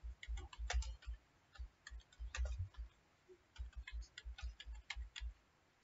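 Computer keyboard keys clicking as a short phrase is typed, in quick irregular runs of keystrokes with brief pauses between them.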